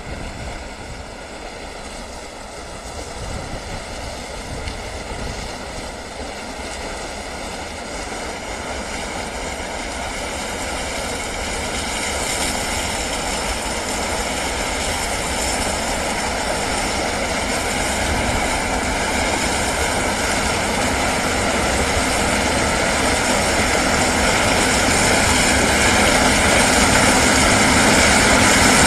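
Case IH 6130 combine harvester with a 12-row corn header running while it harvests standing corn. A steady machine drone with whining tones grows gradually louder as the combine comes closer.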